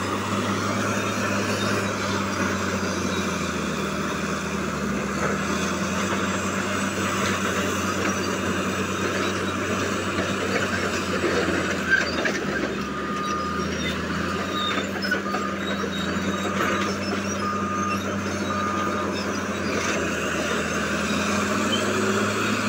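Caterpillar D8T bulldozer's diesel engine running steadily under load as the machine works rocky ground with its rear ripper. In the second half a reversing alarm beeps about six times, roughly once a second, and there is a single sharp knock shortly before it starts.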